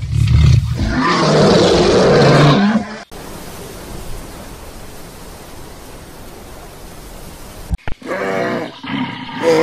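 A lion roaring for about three seconds, cut off abruptly. Then a steady hiss with nothing else in it, and after a click near the end, an animal's pitched call.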